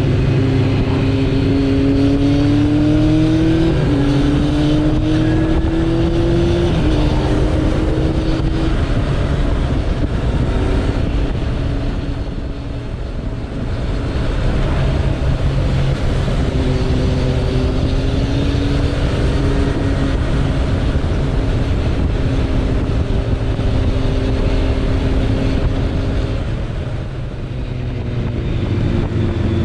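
Suzuki Bandit 1200's inline-four engine under way, heard from the rider's seat. Its pitch rises and steps down as it shifts up through the gears in the first several seconds, then runs steadily, easing off briefly twice, over a constant rush of wind and road noise.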